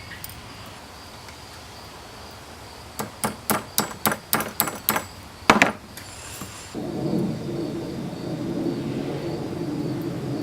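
Hammer blows on steel at the anvil: a quick run of about nine ringing strikes, roughly four a second, the last one loudest. A steady low rushing noise sets in shortly after and runs on.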